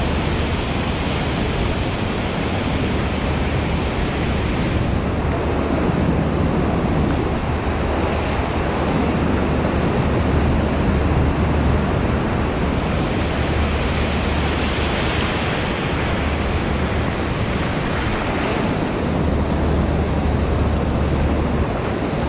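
Surf breaking and washing up a sandy beach, a steady rushing noise, with wind buffeting the microphone in gusts as a low rumble.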